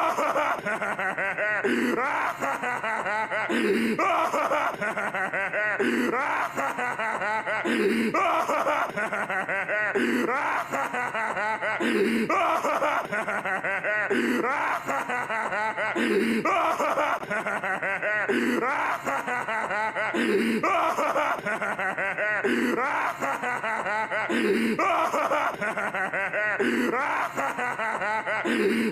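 Plankton, the SpongeBob SquarePants cartoon character, laughing: the same laugh clip looped over and over, repeating about every two seconds.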